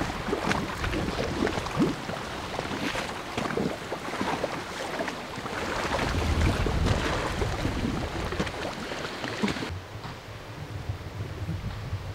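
Wind buffeting the microphone over small waves lapping and splashing against a stone seawall. The sound changes abruptly about ten seconds in to a quieter outdoor background.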